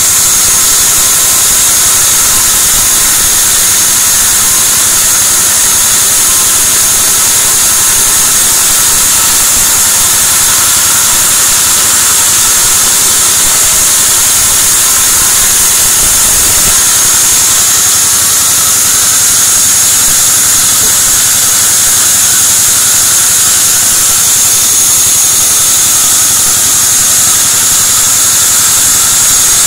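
Large vertical band saw running as a white teak (gmelina) plank is fed through the blade, cutting it lengthwise: a loud, steady high whine over a hiss.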